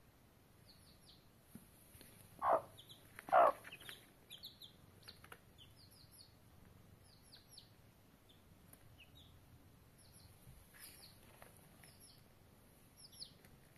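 Chicks peeping, with many short, high, falling cheeps scattered throughout, and a hen giving two short, loud clucks about a second apart a few seconds in.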